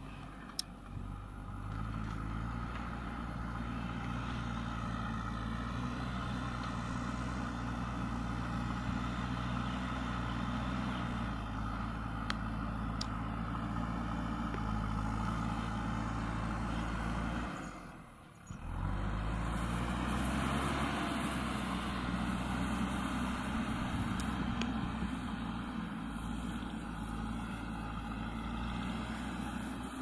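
JCB 3DX backhoe loader's diesel engine running steadily as the machine works the soil with its front loader bucket. The drone briefly drops away about two-thirds of the way through, then returns.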